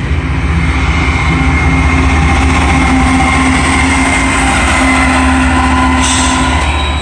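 Union Pacific double-stack freight train passing close by as its trailing diesel locomotive goes past. Loud, steady rumble of wheels on rail with the locomotive's engine drone and a thin, high ringing wheel tone over it.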